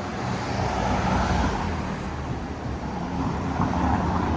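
Road traffic: motor vehicle engines and tyre noise, swelling louder twice as vehicles pass.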